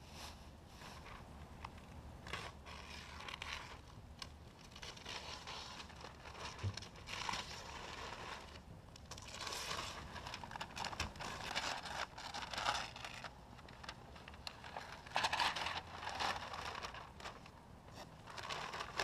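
Blue masking tape being peeled off and newspaper masking pulled away and crumpled from freshly painted panels. It comes as irregular bursts of tearing, scraping and rustling paper, loudest about three quarters of the way through.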